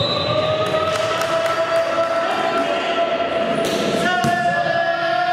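A ball thudding on the sports-hall floor, over long held pitched tones that shift to a new note about four seconds in.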